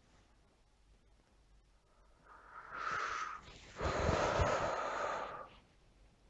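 A person breathing heavily close to the microphone: two long, noisy breaths about two seconds in, the second louder.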